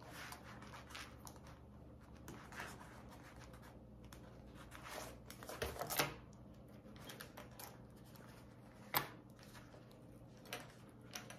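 Hands handling a vinyl bag panel and fitting pronged metal strap connectors through it: faint rustling and sliding of the vinyl, with a few sharp taps, the loudest about six seconds in and again about nine seconds in.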